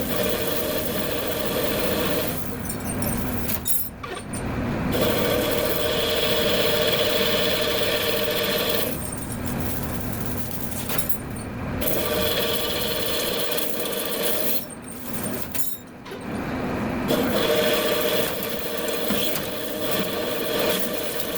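Metal lathe running and cutting, sped up, with a steady hum and whine in long stretches broken by sudden short drops and clicks three times.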